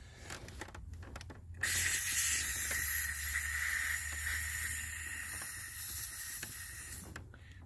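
A person blowing hard through a drinking straw into the ignition lock cylinder housing to clear out metal shavings from the drilled-out old cylinder. A steady hiss starts under two seconds in and lasts about five seconds before cutting off.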